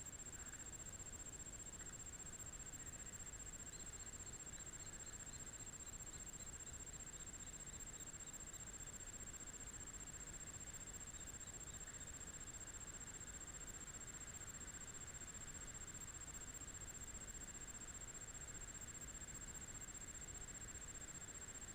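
Faint steady background noise with a low rumble and a steady high-pitched whine, recorded by a GoPro camera. A faint run of short high chirps, slowly falling in pitch, comes a few seconds in, and a few more follow near the middle.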